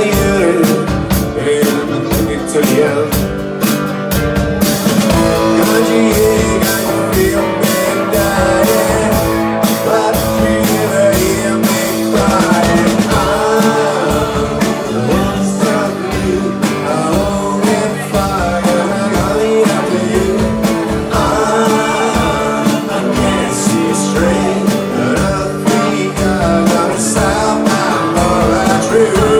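Live rock band playing a song: electric and acoustic guitars over a steady drum beat.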